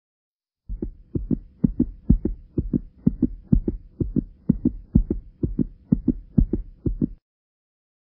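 Regular low double thumps like a heartbeat, about two a second, over a faint steady hum. They start just under a second in and stop about a second before the end.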